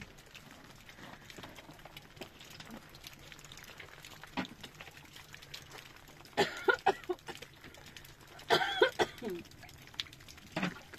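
Open wood fire crackling with scattered small pops, broken twice by short bursts of voice about six and eight and a half seconds in.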